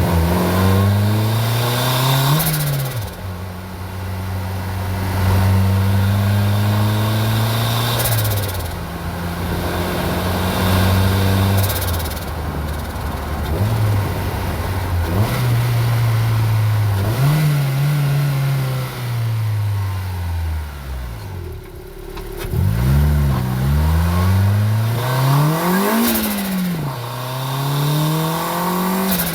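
Turbocharged Honda D16 four-cylinder in a Civic EK, pulled up through the revs several times with pitch dropping between pulls. Short bursts of turbo flutter come as the throttle closes at the end of a pull.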